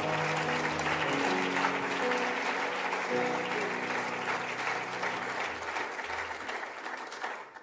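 Congregation applauding while a grand piano plays the closing notes of a gospel song; clapping and piano fade out shortly before the end.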